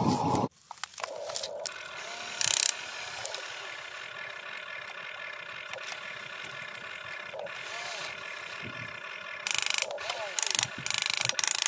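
Small electric motors and plastic gearboxes of a toy RC excavator whining steadily as the boom and arm move, with short, louder bursts of gear clatter about two and a half seconds in and several more near the end.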